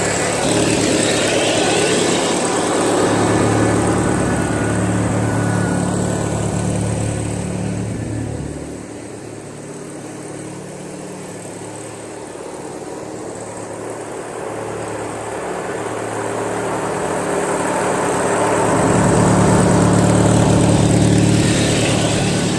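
Briggs & Stratton 19.5 hp opposed-twin engine of a Craftsman LT1000 lawn tractor running steadily. Its sound drops away about nine seconds in, then builds back up loud near the end.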